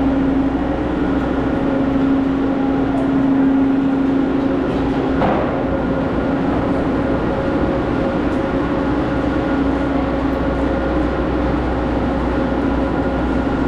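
Ski chairlift running: a steady mechanical hum with a held drone tone, and a single clunk about five seconds in.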